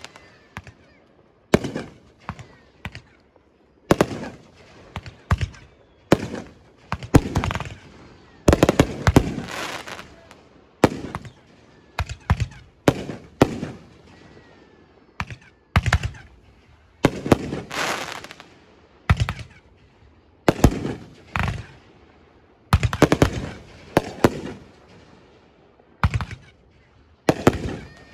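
Aerial fireworks exploding in an irregular series of sharp booms, many of them in quick clusters, each trailing off in a rolling echo.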